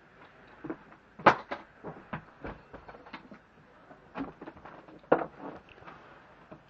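A series of irregular knocks and clatters, two of them much louder, about a second in and again about five seconds in.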